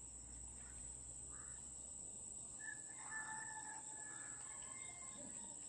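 Faint open-air farm ambience with a rooster crowing faintly from about two and a half seconds in, over a steady high whine.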